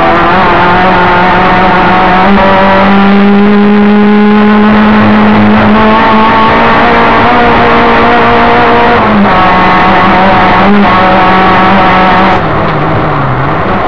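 Opel Ascona rally car's engine heard from inside the cabin, running loud at high revs under hard acceleration, with a few brief changes in pitch along the way. Near the end the revs fall away sharply and then climb again.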